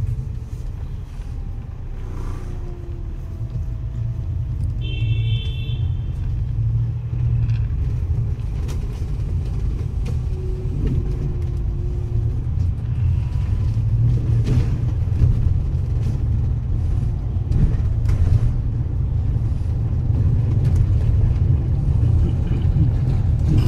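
Double-decker bus engine and drivetrain rumbling, heard from inside the upper deck, slowly getting louder as the bus picks up speed. A short high beep about five seconds in.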